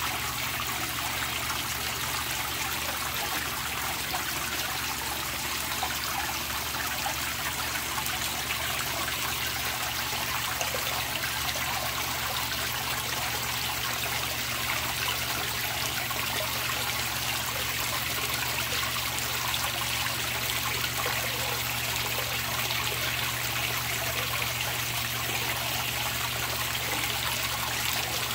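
Water pouring steadily from a pipe outlet into a koi pond, splashing and frothing on the surface, with a steady low hum underneath.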